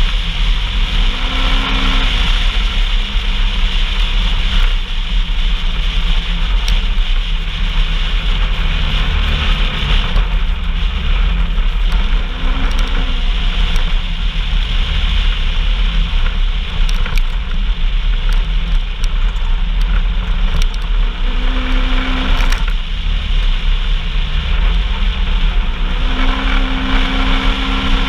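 Off-road vehicle engine running under way, loud and steady, with heavy rumble and noise from the ride. The engine note rises and falls a few times.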